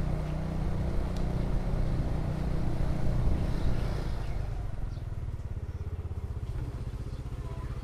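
Motorcycle engine running with road noise. About four seconds in the noise drops away, leaving the engine ticking over steadily with an even pulse.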